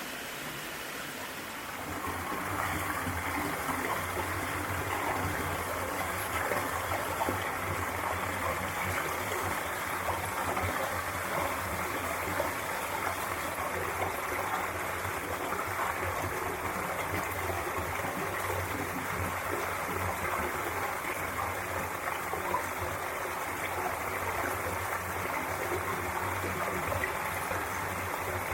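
Mountain valley stream rushing steadily, growing louder about two seconds in.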